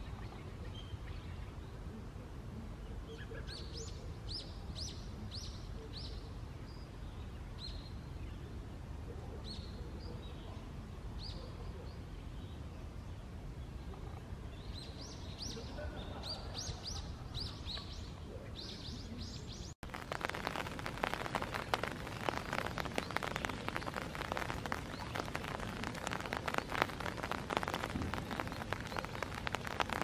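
Small birds chirping in bursts of several short high notes for about twenty seconds; then, after an abrupt change, rain pattering steadily and louder.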